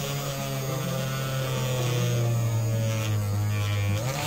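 Small hand-held electric mini drill running with a steady electric whine, drilling through the thin plastic wall of a container. Its pitch sags a little near the end as the bit loads up.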